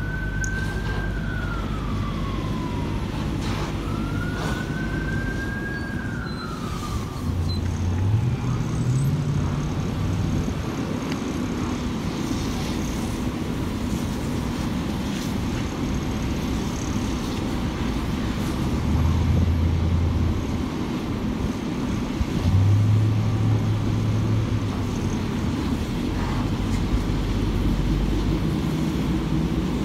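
An emergency vehicle's siren wails in two slow rising-and-falling sweeps, ending about seven seconds in, over a steady low engine rumble. The rumble swells briefly a few times later on.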